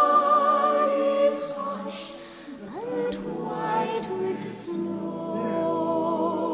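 Slow, soft background music of long held notes.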